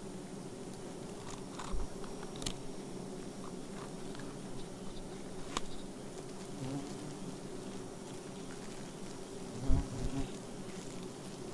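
Giant honeybees (Apis dorsata) buzzing around their open comb in a steady hum, with a few sharp clicks and a loud low knock about ten seconds in.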